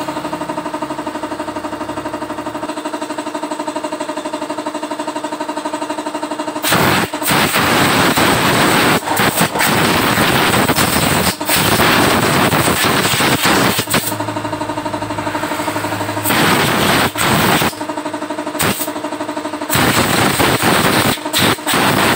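A steady machine sound with a fast even pulse for the first six or so seconds. Then a compressed-air blow gun hisses loudly in repeated blasts of a few seconds each as it blows out a motorcycle engine cover.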